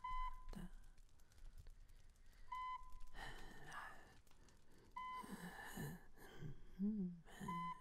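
Hospital heart monitor beeping, one short high beep about every two and a half seconds. Breathing sounds and a few low vocal noises from the bedridden patients fall between the beeps, the vocal noises near the end.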